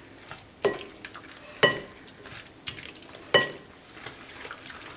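Silicone spatula stirring egg-coated pasta in a glass mixing bowl: soft wet squishing, with three louder knocks against the bowl, each leaving a short glassy ring.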